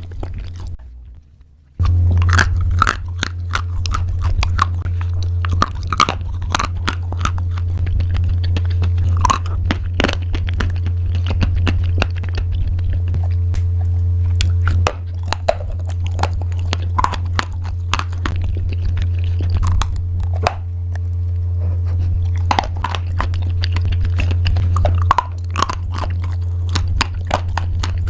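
Close-up chewing and crunching of crunchy pasta: a quick run of sharp, crackling bites and chews, with a steady low hum underneath.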